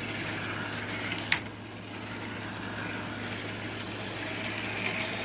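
Bachmann model trolley running around the track: a steady electric whir with a low hum and one sharp click about a second in. It is running smoothly.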